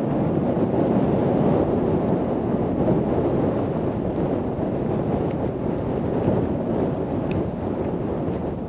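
Wind buffeting the microphone: a loud, steady, rumbling wind noise with no pitch to it.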